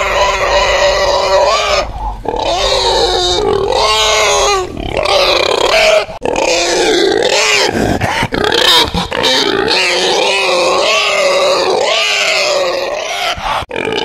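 Domestic pig grunting, in a near-continuous run of loud, wavering pitched calls with a few short breaks.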